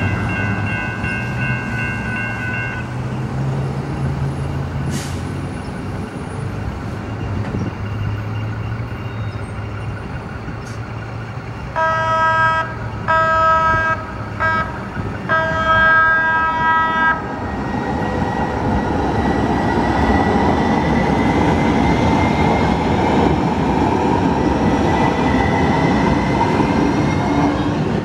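Electronic grade-crossing bells ring for the first few seconds and stop as the gates settle down. About twelve seconds in, a San Diego Trolley light-rail train sounds its horn in several short blasts over about five seconds. It then runs through the crossing with a steady rumble of wheels and a faint rising motor whine.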